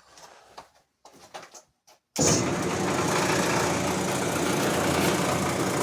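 A few faint handling clicks, then about two seconds in a brake lathe's electric motor switches on suddenly and runs steadily with a low hum.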